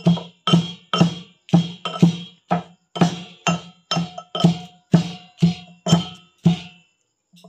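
Metal mortar and pestle pounding fresh herbs and spices to a coarse mash. The pestle strikes steadily, about two times a second, each stroke with a short metallic ring, and stops about a second before the end.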